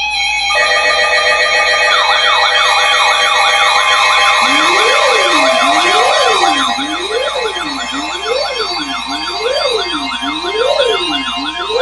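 Several NOAA Weather Radio receivers alarming at once for a High Wind Warning: loud overlapping siren-like alarm tones sweep up and down at different speeds over steady alert tones. A slower, lower up-and-down wail joins about four and a half seconds in.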